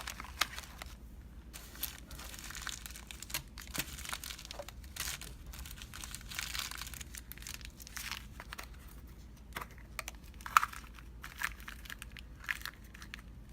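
Packaging crinkling and rustling as small items are handled and put away, with scattered light clicks and taps; one sharper click comes about ten and a half seconds in.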